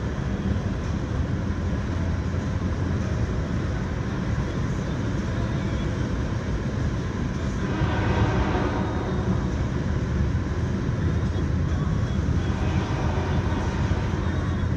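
Steady rumble of a moving car heard from inside the cabin, with a louder rushing swell about eight seconds in.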